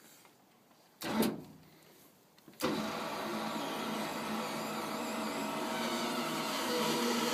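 A short thud about a second in, then the BioPac'r grass-packing machine starts suddenly about two and a half seconds in and runs with a steady mechanical hum.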